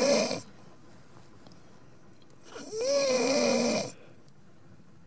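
A person snoring: one snore fading out just after the start, then a second snore lasting about a second, roughly three seconds in.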